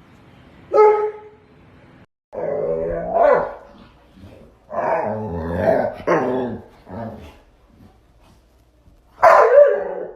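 Bullmastiff barking: a single sharp bark, then two longer, deep, growling bark-howls, then another loud bark near the end.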